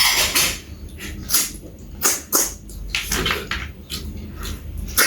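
Eating sounds close to the microphone: a string of short, irregular chewing and slurping noises.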